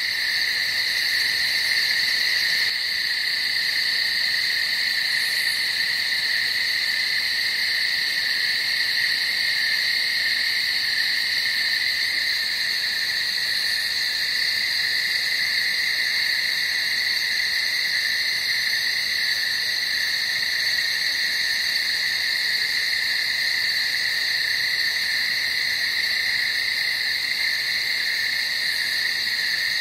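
Steady night-time chorus of calling animals, a continuous shrill trilling in two high pitches that never lets up.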